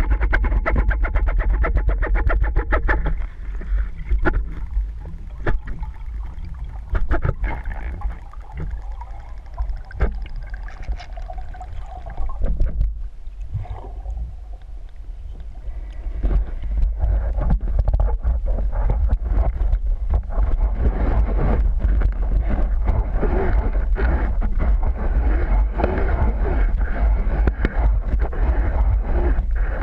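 Underwater sound picked up by a camera in its housing: a steady low rumble with dense crackling and clicking of water moving against the housing as the diver swims. It dies down for several seconds in the middle, then comes back louder.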